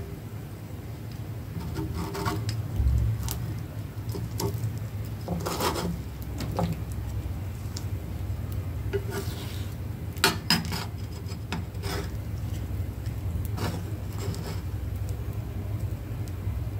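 Spatula and wooden chopsticks scraping and tapping on a frying pan as fried eggs are cut and lifted: scattered short scrapes and clicks over a steady low hum.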